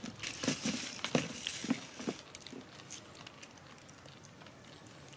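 Young macaques eating a crumbly snack from plates, with light clicks, crackles and rustles of handling and chewing, busiest in the first two seconds and fading after.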